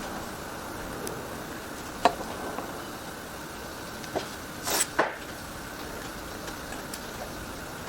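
Handling sounds from woodworking by hand: a sharp tap about two seconds in, a light knock near four seconds and two short scrapes around five seconds, over a steady hum.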